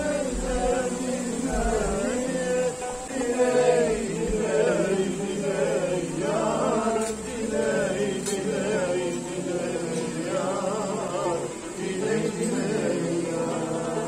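Men singing a song, their voices wavering up and down in ornamented melodic lines.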